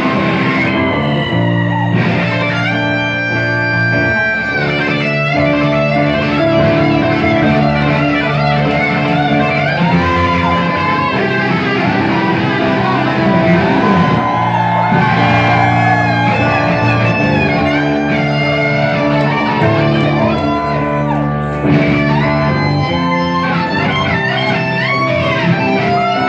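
Hard rock music in an instrumental stretch: electric guitar lines bending up and down in pitch over bass guitar.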